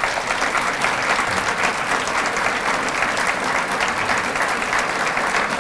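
Audience applauding steadily in a hall, a dense crackle of many hands clapping, in thanks at the end of a lecture.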